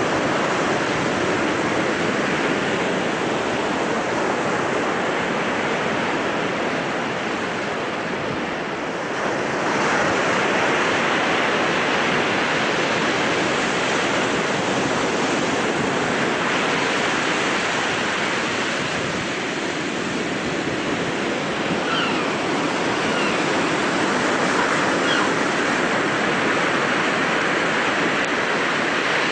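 Baltic Sea surf breaking and washing over the shallows in a steady rush, growing brighter and a little louder about nine seconds in.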